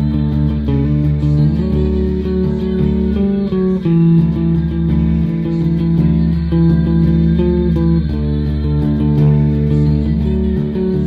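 Bass guitar played with strummed chords, each chord ringing on with strong low notes and changing about every second.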